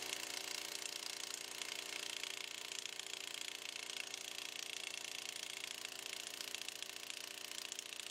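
Gas-powered post driver running steadily, its small engine hammering a steel well pipe down with rapid blows to drive a sand point well.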